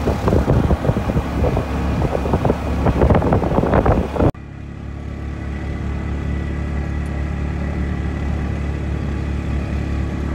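Riding in a moving vehicle: gusty wind and road noise for about the first four seconds. After a sudden cut comes a steady engine drone with a faint thin whine above it.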